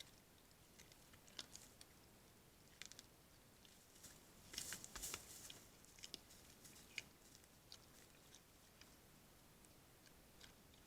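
Faint crunching and clicking of a wild animal feeding close to a trail camera, heaviest in a short cluster about halfway through.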